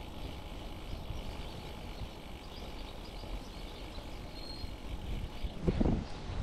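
Wind and rolling noise rumbling steadily on a bicycle-mounted GoPro's microphone, with a few faint high chirps in the middle. Near the end the wind starts buffeting the microphone in loud gusts.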